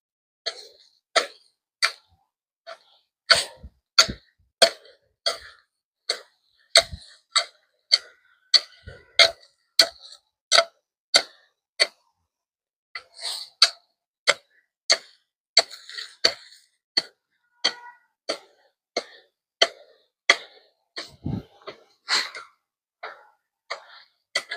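A hand tool striking the ground over and over in a steady rhythm, about one and a half strikes a second, with a short pause about halfway through.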